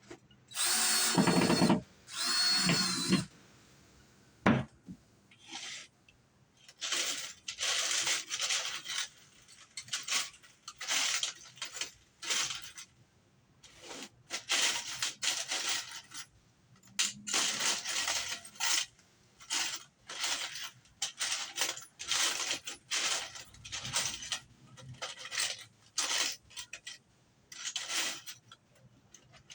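Two short bursts of a power tool with a high whine near the start, then a long run of rasping back-and-forth strokes of hand work on wood, in irregular groups.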